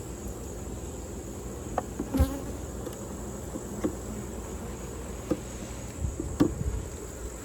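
Honeybees buzzing steadily around an opened hive during a colony split, with several sharp knocks of hive equipment, the loudest about two seconds in.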